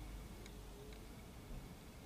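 Quiet background hiss with two faint ticks about half a second apart, and a faint thin hum that rises slightly in pitch.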